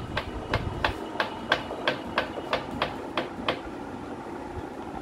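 Labrador puppy chewing on its leash: a run of sharp, regular clicks, about three a second, that stops about three and a half seconds in.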